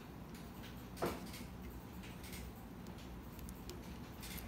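Faint metallic ticks and clicks of a screwdriver turning and seating a screw on an inkjet printer's encoder mounting bracket, with one sharper click about a second in.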